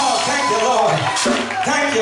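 Church praise-break music playing, with a man's voice over it at the microphone.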